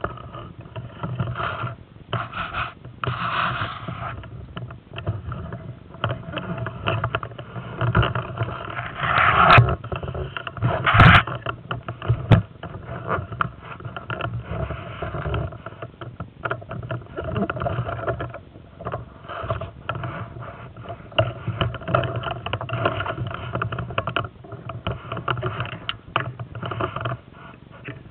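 Close handling noise on a body-worn camera: irregular rustling and scraping with many small clicks, and two sharper knocks a little before halfway.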